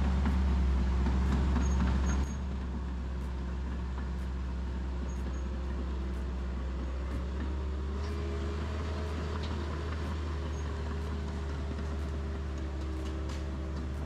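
Bulldozer's diesel engine running steadily with a deep, even hum. It drops to a lower level a little over two seconds in.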